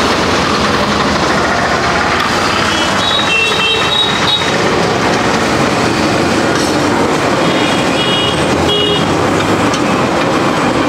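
A paratha sizzling steadily in oil on a large flat iron tawa, against the hum of passing road traffic. About three seconds in, and again about eight seconds in, comes a short run of high beeps.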